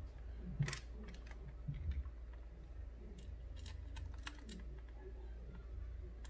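Scattered light clicks and taps of a screwdriver driving a small screw into a laptop SSD's mounting bracket, with a sharper click just under a second in, over a steady low hum.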